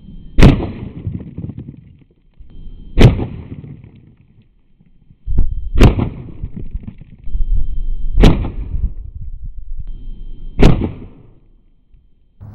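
.177 caliber air rifle fired five times, about two and a half seconds apart, each shot a sharp crack, with low handling noise between shots.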